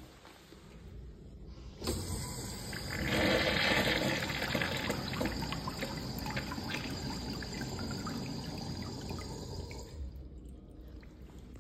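Sloan high-efficiency urinal flushing: the flush valve opens with a sudden rush of water about two seconds in. The rush is loudest a second or two later, then tapers off as the water swirls down the drain, dying away near the end.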